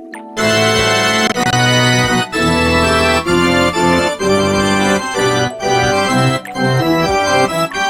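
Organ-like keyboard chords played in a short sequence, each chord held for about half a second to a second.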